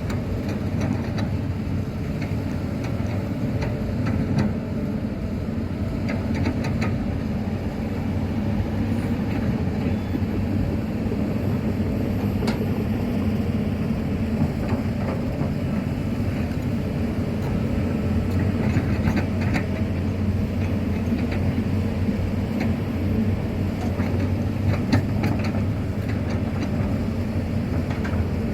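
Hitachi ZX200-5G hydraulic excavator's diesel engine running steadily under load while it digs and swings, with intermittent clatter.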